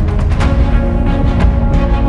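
Background music: held chords with a few sharp percussion hits.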